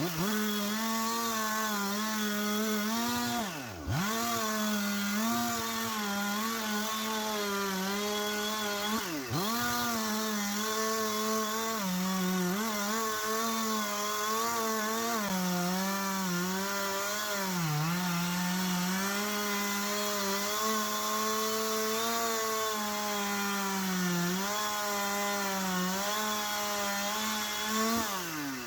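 Two-stroke Husqvarna chainsaw running at high revs while cutting wood. Its pitch sags a little under load now and then, and it drops sharply and comes back up twice, about 4 and 9 seconds in, as the throttle is let off and squeezed again.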